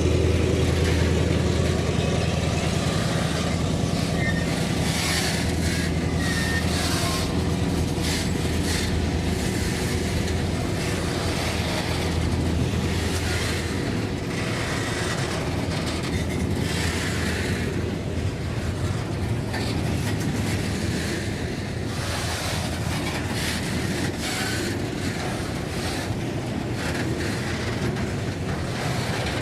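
Diesel freight locomotive passing, its engine's low drone fading away about halfway through, followed by freight wagons rolling by with steady rail clatter.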